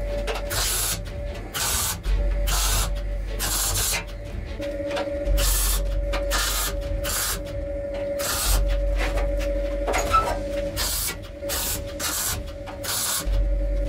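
MIG welder laying a row of short stitch welds on thin sheet steel: about a dozen brief crackling bursts of the arc in quick succession, each lasting well under a second.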